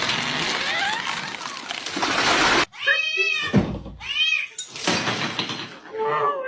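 A steady hissing noise for the first couple of seconds, then a cat meowing twice, with more meowing near the end.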